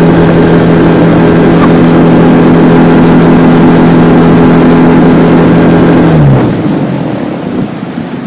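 Small tiller outboard motor on a boat running steadily at speed. About six seconds in it is throttled back: its pitch drops and the engine sound fades, leaving the wash of water against the hull.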